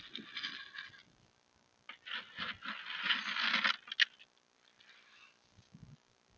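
Dry chicken snacks being scooped from a plastic bucket and scattered onto the ground, heard as a rattling hiss twice: briefly at the start, then longer from about two to four seconds in, ending with a sharp tap.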